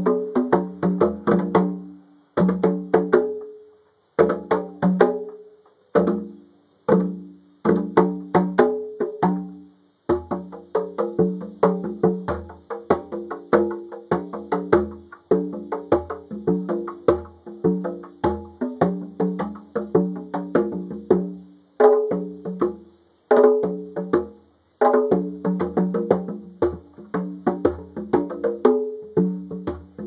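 A pair of conga drums played by hand, the strokes ringing at a low and a higher pitch. Short phrases broken by brief pauses through the first ten seconds, then a continuous fast rhythm.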